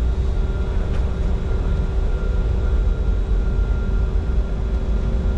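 Steady cockpit noise of a Bombardier Challenger 605 business jet on approach: a low, even rush of airflow and engine sound with a few faint steady whining tones above it.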